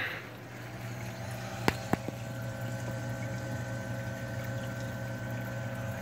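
Saltwater aquarium sump running: a steady pump hum with water flowing, and two sharp clicks a little under two seconds in.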